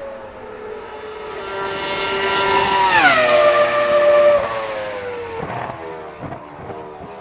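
Toro Rosso STR1's 3.0-litre Cosworth V10 Formula 1 engine at high revs as the car passes by. The high-pitched note grows louder, drops sharply in pitch as the car goes past about three seconds in, then fades with the note sliding lower and a few crackles near the end.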